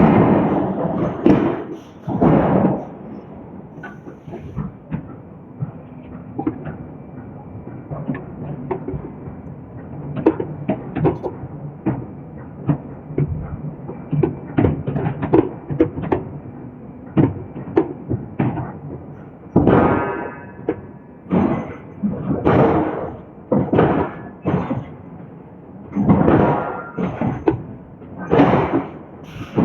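Hydraulic forging hammer striking a hot steel billet: three heavy blows at the start, lighter knocks and clanks through the middle, then a run of heavy blows about one a second in the last third, some with a brief metallic ring.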